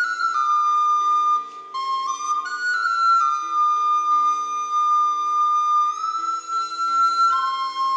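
Recorder playing a slow melody of long held notes that step up and down a few times, over a backing of low sustained chords.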